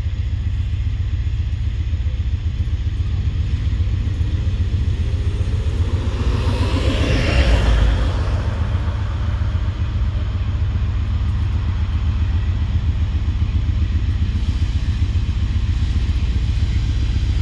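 Low, steady rumble of the approaching loaded coal train's diesel locomotives, still some way off. A brief swell of road-traffic noise rises and fades about seven seconds in.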